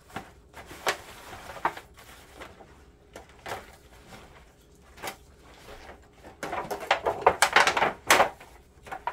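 Disposable aluminum foil pan crinkling and wet, dye-soaked fabric squelching as gloved hands scrunch and press the cloth around in it. A scattered string of crackles and rustles grows dense and loudest in the last few seconds.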